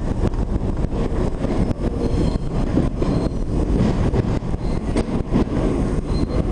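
R32 subway train running through a tunnel: a steady, loud low rumble of wheels on rail with a rapid, uneven clatter of clicks.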